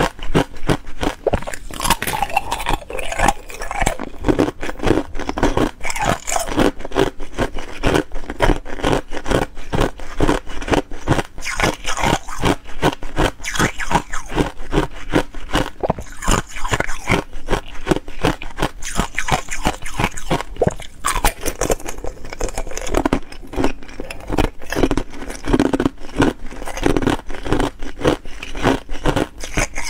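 Thin ice cubes being bitten and chewed: dense, rapid crunching and crackling of ice between the teeth, with no break.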